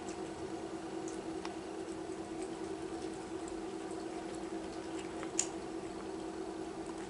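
Two sphynx kittens eating wet cat food from a stainless steel dish: moist smacking and lapping chewing noises made of many small irregular clicks, with one sharper click about five seconds in. A steady low hum runs underneath.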